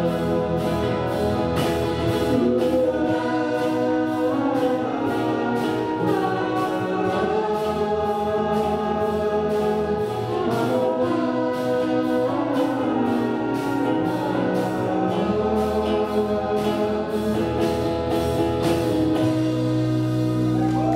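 Live pop band playing with a woman singing lead over electric guitar, drum kit, alto saxophone and trumpet, on a steady drum beat. Near the end the band holds a long final chord.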